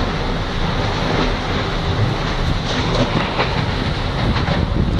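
Tornado winds blowing hard: a loud, steady rushing noise with heavy wind buffeting on the microphone, and a few faint ticks around the middle.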